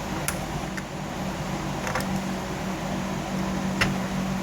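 Steady mechanical hum of a fan in a small room, with three light clicks scattered through it.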